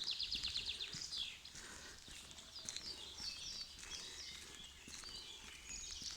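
Songbirds singing: a fast high trill in the first second, then scattered short chirps and phrases, with another trill starting near the end, over a faint low background rumble.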